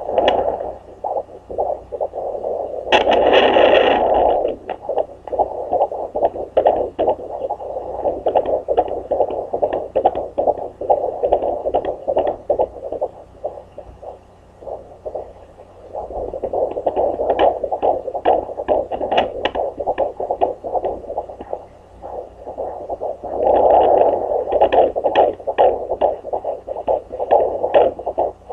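Handheld fetal Doppler's speaker giving a whooshing, rapidly pulsing heartbeat sound as the probe searches over a 17-week pregnant belly for the baby's heartbeat. There is a burst of crackling about three seconds in, and the pulsing swells and fades as the probe moves.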